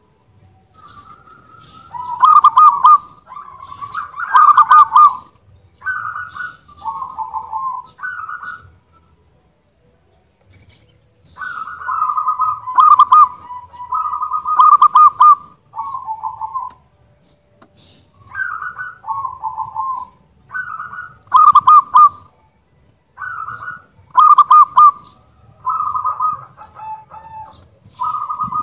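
Zebra dove (perkutut) singing in full, loud voice: phrases of short cooing notes, the loudest of them rolling trills, with two short pauses between phrases.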